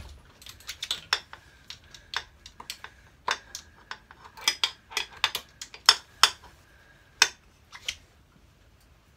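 Socket ratchet from a Halfords set clicking in short, irregular strokes as it loosens a rear-shock mounting nut on a Yamaha MT-07.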